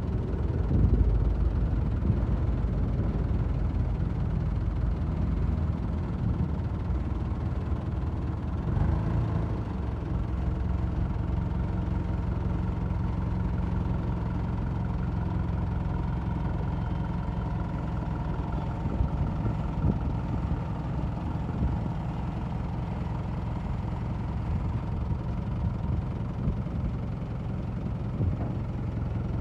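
Kubota M7970 tractor's diesel engine running steadily at idle.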